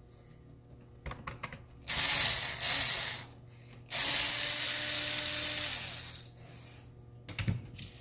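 Small cordless electric screwdriver running in short spells, a brief run about two seconds in and a longer one about four seconds in, as it backs screws out of a plastic laptop bottom case. A few light clicks of handling come just before.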